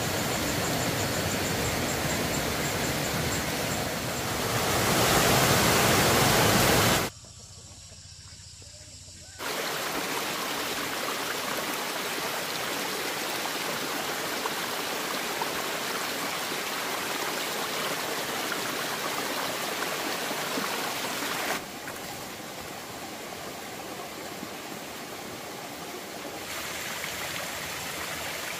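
Steady rushing of running water with no distinct events. Its level jumps abruptly several times: louder about four seconds in, then much quieter for a couple of seconds around seven seconds in, and somewhat quieter again after about twenty-one seconds.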